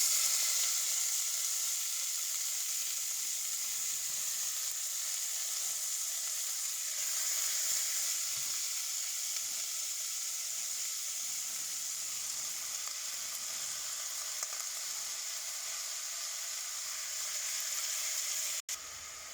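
Chopped runner beans sizzling in hot oil with tempered mustard, cumin and fenugreek seeds, a steady hiss that is loudest as they go in and eases slightly. It cuts off abruptly near the end.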